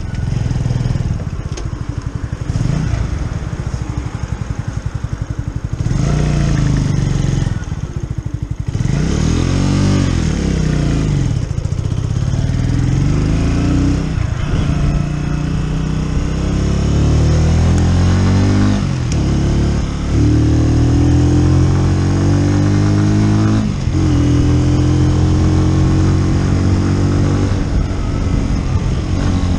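Keeway Superlight 125 motorcycle engine running low and even for the first several seconds, then pulling away with the revs climbing. The revs drop back and climb again three times, as the bike shifts up through the gears.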